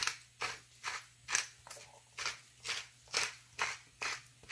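Hand-held pepper grinder twisted over and over, grinding black pepper in a steady run of short grinding strokes, about two a second.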